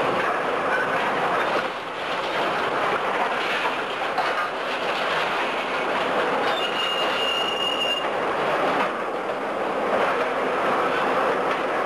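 Demolition with a Menck M152 cable crawler crane and wrecking ball: a steady, rough clatter of machinery and falling masonry, with a brief high squeal about seven seconds in.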